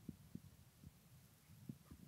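Near silence: room tone with a few faint low thumps.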